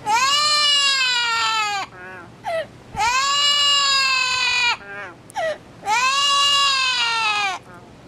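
Amazon parrot giving three long, drawn-out wailing calls, each nearly two seconds, rising at the start and then sagging slowly in pitch, with short chirps between them. The calls sound much like a crying baby.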